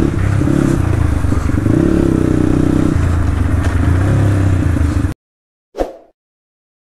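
Motorcycle engine running while being ridden, its pitch rising and falling, with clatter. It cuts off abruptly about five seconds in, followed by one brief faint sound.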